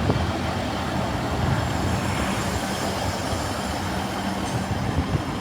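A train running through the station: a steady rumble with a faint low hum from its motors.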